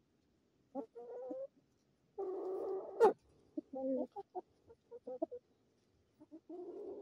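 Chickens clucking in several short bursts while feeding, with a sharp tap about three seconds in.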